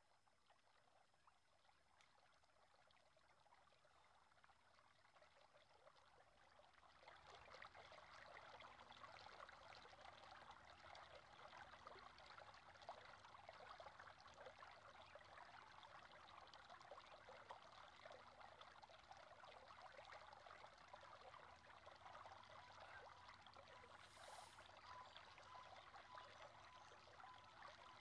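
Faint trickling, running water that fades in about seven seconds in and then holds steady.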